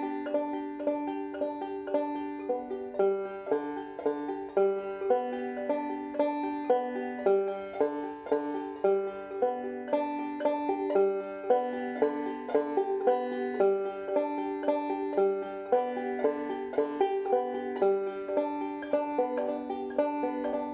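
Deering Goodtime open-back banjo played clawhammer style: a warm-up exercise of plucked notes and brushed strums in a steady rhythm, each note ringing briefly.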